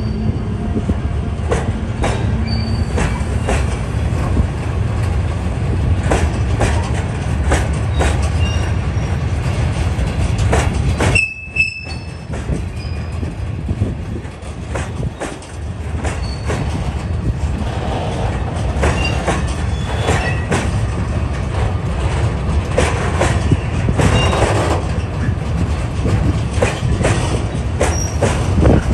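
Freight train of loaded cement hopper wagons rolling past: a steady rumble of steel wheels on rail with repeated clacks as the wheelsets cross rail joints, and brief high wheel squeals. The sound drops out for about a second around eleven seconds in.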